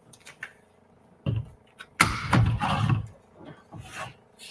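Handling of scrapbook paper and a plastic border punch on a desk: a few light clicks, then a knock about two seconds in followed by about a second of paper rustling and sliding, then quieter handling.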